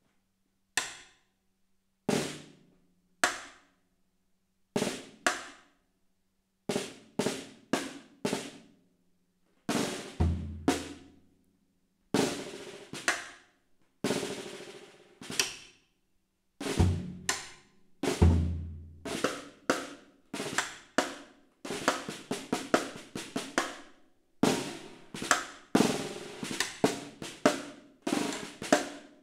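Acoustic drum kit played in a free solo improvisation: sparse single strokes at first, with gaps between them, growing into quicker groups of strokes and then dense rapid flurries in the last several seconds. Two deep bass drum strokes come about ten and eighteen seconds in.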